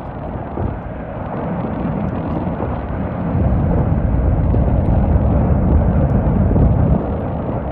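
Erupting volcanic vent fountaining lava, a deep steady rumble that grows louder about three seconds in.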